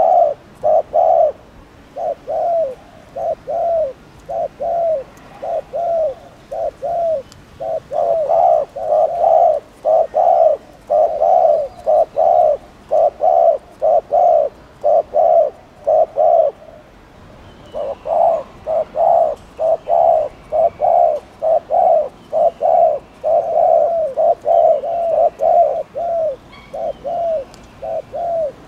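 Spotted dove (cu gáy) giving its 'gù' coo: a long run of short, arched coos, about two a second, with one break of about a second past the middle.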